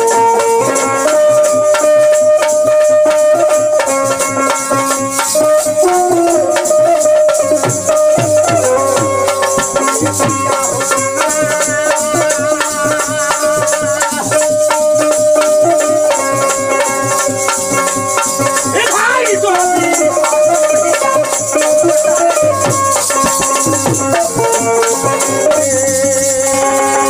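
Bhojpuri folk ensemble playing: a bulbul tarang (keyed Indian banjo) carries a sustained melody over dholak drum strokes, with a hand-held wooden rattle shaken in rhythm.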